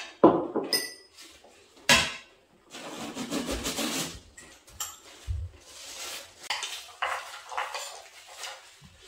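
Spoons and forks clinking and scraping against plates and bowls during a meal: several sharp knocks, with a longer scrape in the middle.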